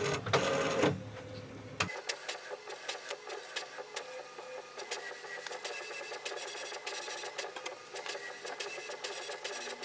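HP Envy Photo 6230 inkjet printer printing its calibration page: a steady mechanical whir with many quick clicks as the print carriage shuttles and the sheet feeds out. It is louder in the first second.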